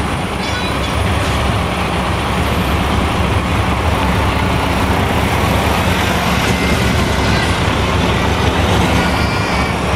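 Heavy diesel truck engines running as a DAF tractor unit and the trucks behind it pull out slowly in a line: a steady, deep engine sound that holds at one level throughout.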